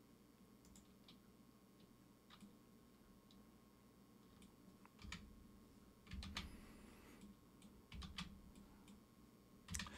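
Faint, scattered clicks of a computer mouse and keyboard over near silence, a few of them louder in the second half.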